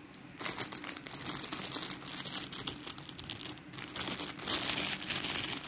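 Clear plastic bag of puffed fish crackers crinkling as it is handled, a dense crackle that grows louder near the end.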